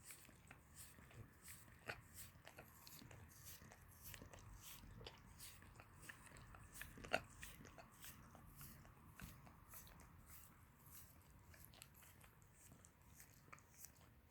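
Dog licking close to the microphone: quick, irregular wet smacking clicks of the tongue, with one sharper click about seven seconds in.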